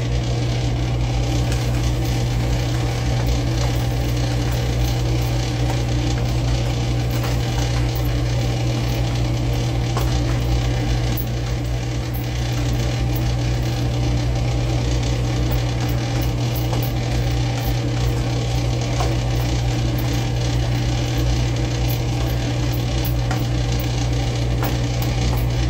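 Food frying in oil on the stove: a steady sizzle with scattered small crackles, over a constant low hum.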